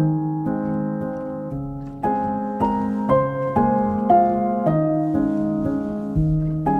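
Background piano music: chords and single notes struck about twice a second, each dying away.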